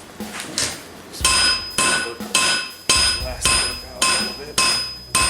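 Hand hammer blows on hot steel over an anvil, forging a knife blade from a pipe wrench jaw. About nine strikes come at a steady pace of roughly two a second, the first one light, and each is followed by a bright ringing tone from the anvil.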